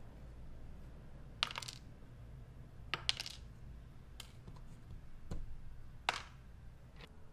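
Sharp clinks of small hard keyboard-switch parts being handled, each with a brief bright metallic ring: three louder ones spread over the stretch, with fainter clicks between.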